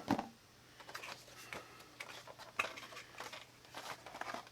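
Cardboard box and plastic packaging handled as a vinyl figure is taken out, giving scattered light clicks and rustles.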